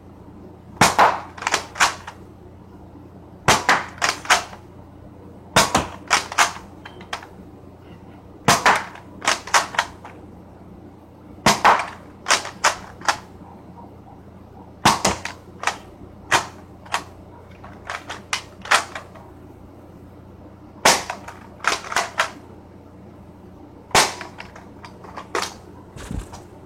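Nerf blaster being worked and fired over and over: short clusters of two to four sharp plastic snaps and clacks, a new cluster every two to three seconds.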